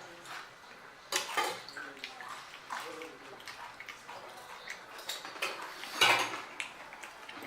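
Close-miked eating of pani puri: wet chewing and slurping of the water-filled crisp puri shells, with two louder bursts, about a second in and about six seconds in.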